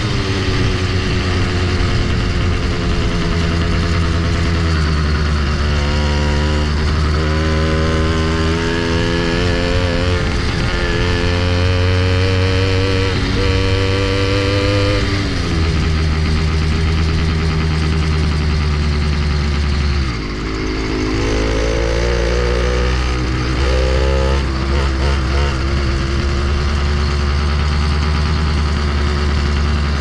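80cc two-stroke motorized bicycle engine running under way, its pitch rising in several long climbs as the throttle is opened and falling back, over a steady low drone. Its carburetor has been richened one step to cure a lean mixture.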